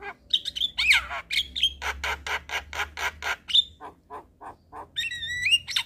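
Javan mynas calling: a run of harsh, rasping chatter notes about four or five a second, then a rising whistled note near the end.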